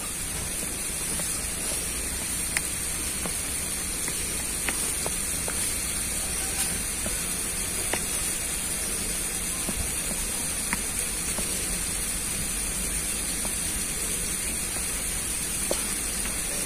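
A metal spoon stirring and mashing salted egg yolk with hot water in a plastic bowl, giving a few light scattered clicks against the bowl over a steady high-pitched outdoor hiss.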